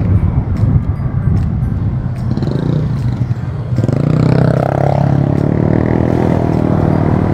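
Motorcycle engine running while riding in traffic, with wind rumble on the camera microphone. About four seconds in, the engine drone comes up louder and steadier.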